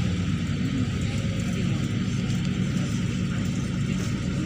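A Neman city bus's diesel engine running steadily while the bus is under way, with road noise, heard from inside the passenger cabin.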